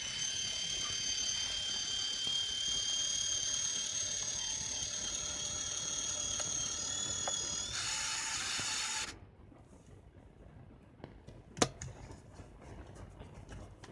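The Canon Autoboy A's film-rewind motor runs for about eight seconds with a steady, high-pitched whine. Near the end the whine gives way to a rougher rush as the film tail is drawn into the cartridge, then it stops suddenly. About two seconds later there is a single sharp click as the camera's back door is unlatched.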